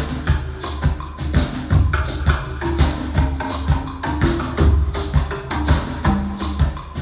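Music played through Dali Opticon 2 bookshelf loudspeakers: a deep bass line under fast, busy percussion with tambourine-like hits.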